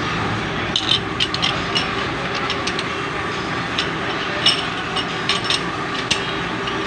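Machine-shop machinery running steadily, with irregular light metallic clinks and taps over it, about a dozen of them scattered through.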